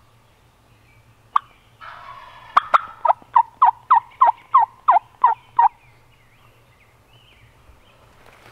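Turkey yelping: a single note about a second in, a short rough rattle, then a loud run of about ten yelps, roughly three a second, each dropping in pitch.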